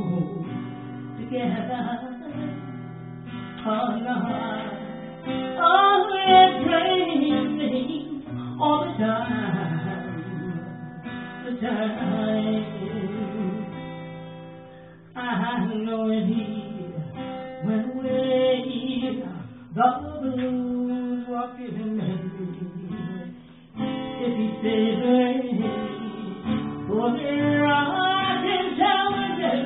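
A woman singing a blues song to her own strummed acoustic guitar, live. Her voice glides and bends over the chords, with short breaks twice.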